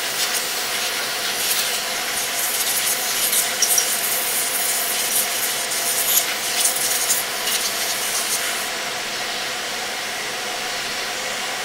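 Vacuum cleaner running steadily while dust is vacuumed out of a laptop, with bouts of scratchy rubbing strokes. The rubbing stops about nine seconds in, leaving only the steady hum of the vacuum.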